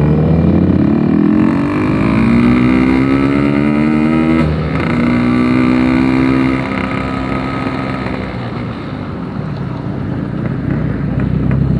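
Yamaha RX-King's 135cc two-stroke single running through a Packing Power aftermarket exhaust under way: the revs climb, break off about four and a half seconds in as at a gear change, climb again, then fall away and rise once more near the end. The exhaust note is loud and slightly bassy.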